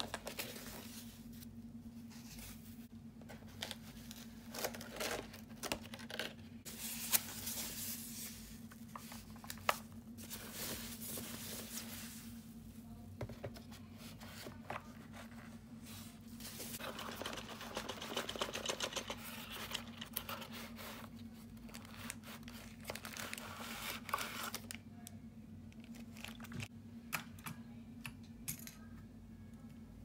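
Keyboard packaging being handled: foam and plastic wrap rustling and crinkling, with scattered taps and knocks against the box, over a steady low hum.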